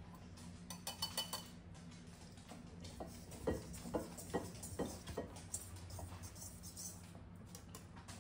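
A utensil stirring dry flour and salt in a mixing bowl, with irregular taps and clinks against the bowl, a few of them ringing about a second in.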